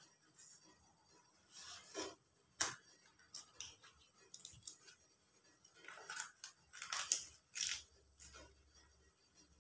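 Banana leaf crackling and rustling as it is rolled up and folded around batter, in short scattered crackles, with a sharp crack about two and a half seconds in and a cluster of louder crackles around seven seconds.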